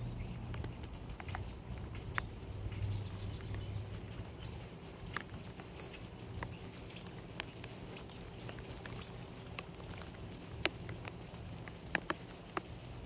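Light rain pattering with scattered sharp ticks, while an eastern chipmunk nibbles a peanut close by. A bird gives a run of short high chirps from about one to nine seconds in.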